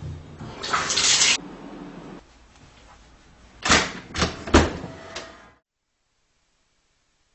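A shower valve is turned on and water sprays with a loud hiss for about a second near the start. Then a door handle and latch click and knock four or five times in quick succession.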